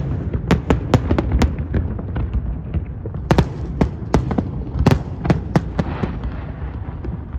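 Fireworks display: a dense, irregular barrage of sharp bangs and cracks over a constant low rumble of distant bursts, loudest about halfway through.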